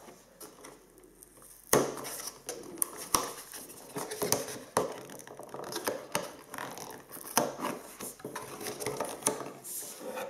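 Cardboard packaging being handled: a camera in a hard plastic housing and a cardboard insert lifted and slid out of a box, with rustling and scraping and scattered sharp clicks and taps, the loudest about two seconds in.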